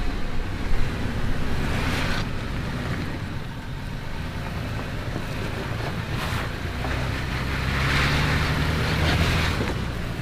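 Toyota 4Runner engine running at low speed while crawling off-road, growing louder about seven seconds in, with a knock near the start and wind on the microphone.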